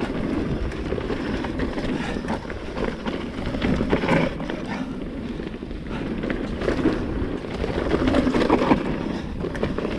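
Mountain bike riding fast down a dirt and stone trail: a continuous rush of tyre noise over loose ground, with many small knocks and rattles from the bike over rocks and roots, and wind buffeting the microphone.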